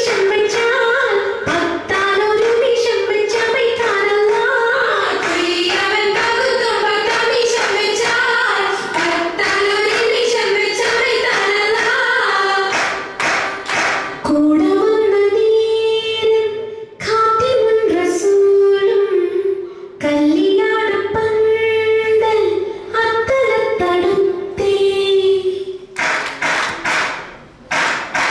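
Women's voices singing an Oppana song (Mappila wedding song) in unison, with sharp hand claps in time; the claps come thick and fast twice, about halfway through and near the end.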